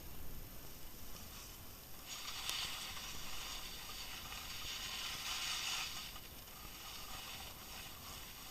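Skis sliding and scraping over firm snow: a hiss that swells about two seconds in and fades near six seconds, over a low steady rumble.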